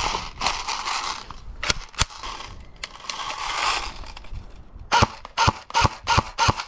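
Electric airsoft RPK handled with rustling and a couple of sharp clicks, then from about five seconds in firing single shots, about three a second, each a sharp click with a short ring.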